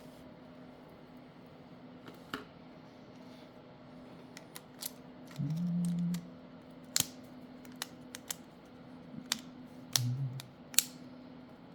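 Small irregular clicks and taps of tools and parts being handled during smartphone disassembly, with a short low buzz about halfway through and another near the end, over a faint steady hum.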